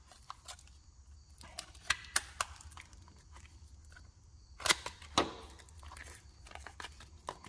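Hands opening a paper parts package with a folding knife: scattered clicks and paper rustles, with sharper snaps about two seconds and about five seconds in.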